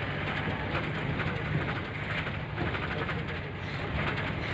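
Steady rumble of a vehicle driving along a road, engine and road noise heard from on board, with no clear changes.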